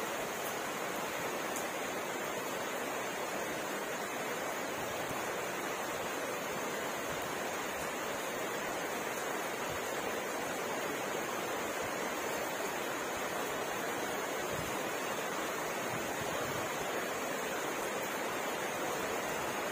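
Steady heavy rain, an even wash of noise with no single drops standing out.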